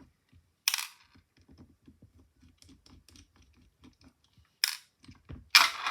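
Small metal tools ticking and clicking against a lock cylinder as it is taken apart, a few faint clicks a second, with three sharper metallic clatters: one about a second in and two near the end.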